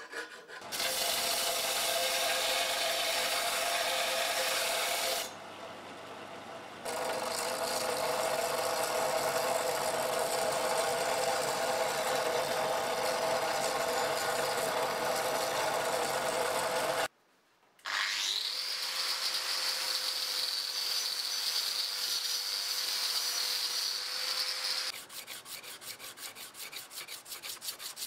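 Bench belt sander running with the rusty billhook blade ground against the belt, a steady grinding noise with a dip in the middle. After a short break, a power tool spins up with a rising whine and runs steadily. Near the end, quick back-and-forth rubbing of a wooden sanding block on the blade.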